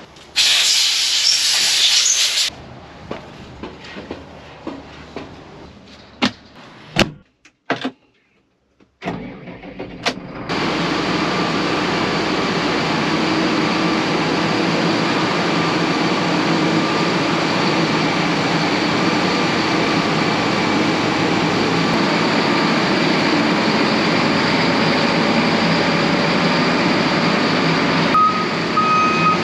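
A short loud hiss and a few knocks, then from about ten seconds in a RoGator self-propelled sprayer's diesel engine running steadily as the machine moves. Near the end its backup alarm starts beeping in an even, steady tone.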